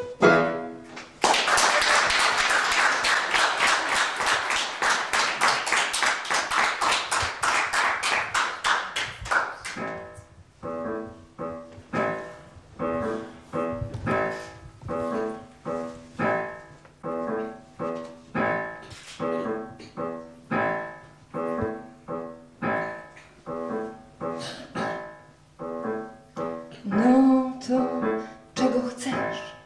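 Audience applause that dies away about ten seconds in, followed by a piano playing evenly repeated chords at a steady pace.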